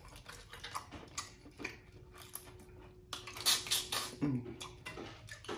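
Boiled crawfish shells being cracked and peeled by hand, a run of small wet clicks and crackles, with louder crackling about three seconds in.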